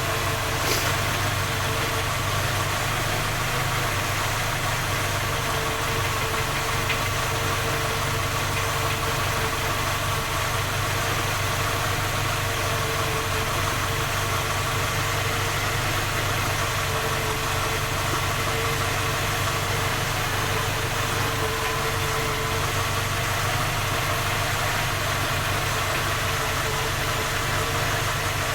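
Skoda Octavia 1.6 MPI four-cylinder petrol engine idling steadily with a knock, a fault the owner says three engine repairs have not found or cured.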